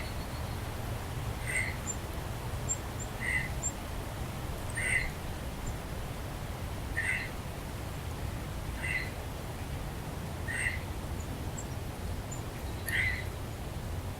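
A bird repeating a short call about every one and a half to two seconds, with faint high chirps from other small birds.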